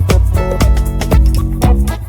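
Background music with a steady beat, strong bass and pitched instrumental notes.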